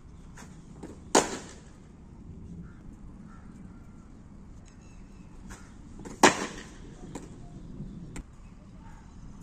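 Cricket bat striking a ball twice, about five seconds apart, each a sharp crack with a short ring, with fainter clicks of the ball landing or being thrown shortly before each hit.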